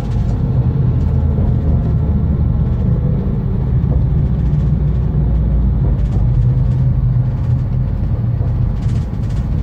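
TER regional train running just after pulling out of a station, heard from inside the carriage: a steady low engine drone with the rumble of the wheels and car body.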